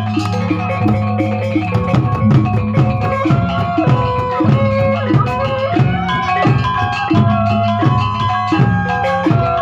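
Lombok gendang beleq ensemble playing: large barrel drums beat a steady rhythm while small gongs and cymbals ring out a repeating melody over a sustained low gong hum.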